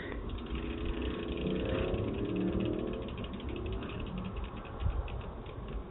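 Bicycle rear wheel spinning freely, its hub ticking rapidly in an even rhythm, with a low hum that swells and fades in the first half.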